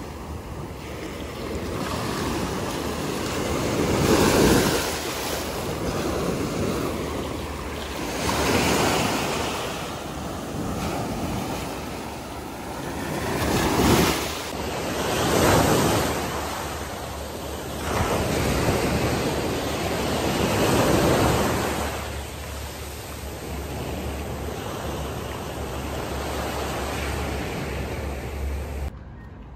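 Small sea waves breaking and washing up a sandy beach at the water's edge, the surf swelling and fading every few seconds. It cuts off abruptly just before the end.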